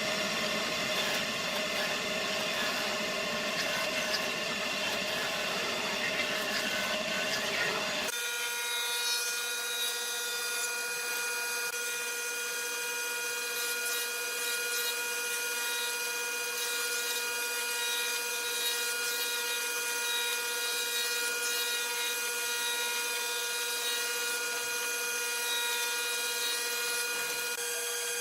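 Electric power tools working wood: a rough, noisy cutting sound for about the first eight seconds, then an abrupt change to a steady high motor whine.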